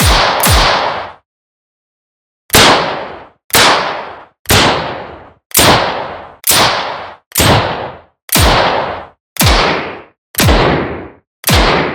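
Revolver gunshot sound effect: single shots fired one after another, two close together at the start, then after a short pause about ten more at roughly one a second. Each is a sharp crack with a fading tail and a low thud that drops in pitch.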